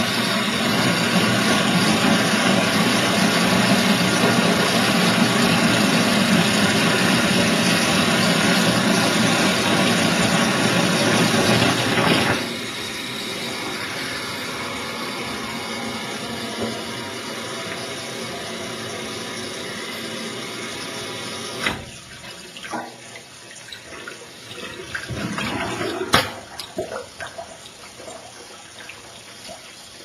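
Tap water rushing through a metal pipe whose mouth is underwater in a steel sink. About twelve seconds in, the rush drops to a quieter flow while a plug is worked up into the pipe's mouth against the flow. About twenty-two seconds in it falls lower still, leaving scattered splashes and knocks.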